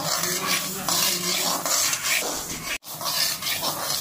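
Steel spoon stirring and scraping fenugreek seeds around a dry metal kadai, the seeds rattling against the pan in repeated strokes, as they are dry-roasted to a dark brown. The sound cuts out for a moment a little under three seconds in.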